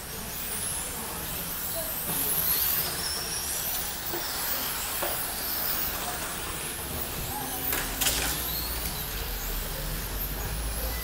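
Radio-controlled car's motor whining high, revving up and down repeatedly as it is driven, over a steady low rumble, with a sharp clatter about eight seconds in.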